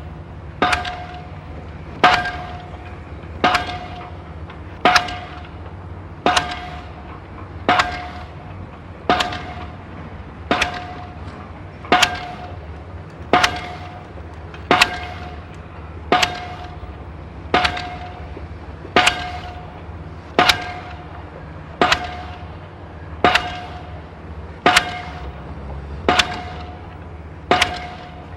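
Metal being struck over and over at a steady pace, about one clang every second and a half, each ringing briefly. A low steady hum runs underneath.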